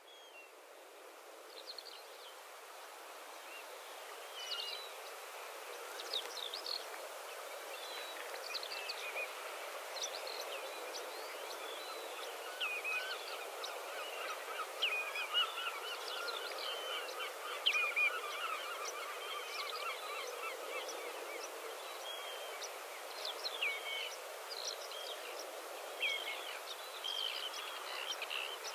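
Field recording of birdsong: many small birds chirping over a steady outdoor background noise, fading in over the first few seconds.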